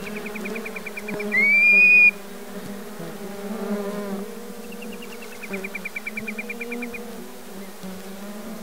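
Steady hum of swarming flying insects, with bird calls over it: a rapid high trill heard a couple of times, and one loud whistled note that rises and then holds, about a second and a half in.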